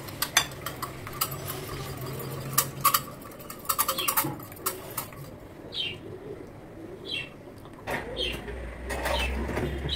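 Wire whisk beating eggs in a glass bowl, the wires clicking quickly against the glass for about the first five seconds. After that come a few short high chirps, and a low hum starts near the end.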